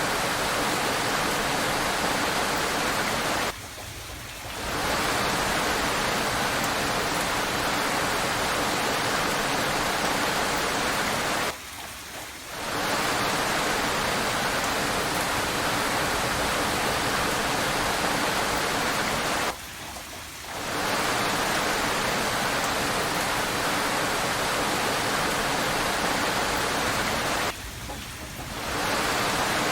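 Steady hiss of heavy rain that dips briefly about every eight seconds, four times in all, each dip lasting about a second before the rain fades back up.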